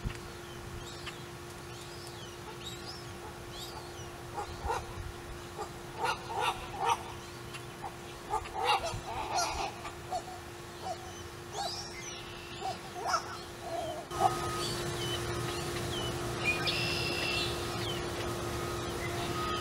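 Limpkins at the nest giving a run of short, repeated calls that start a few seconds in and die away after about ten seconds, over a steady low hum.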